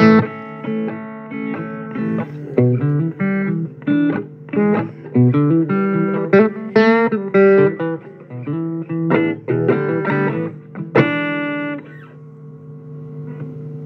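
Blues guitar picking quick single notes and short phrases, ending on a chord about eleven seconds in that rings on.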